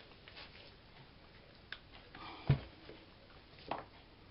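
Yeast dough being handled: a few soft clicks and thumps as a lump of sticky kulich dough is pulled from a plastic bowl and dropped into a silicone mold on a baking tray, the loudest thump about two and a half seconds in.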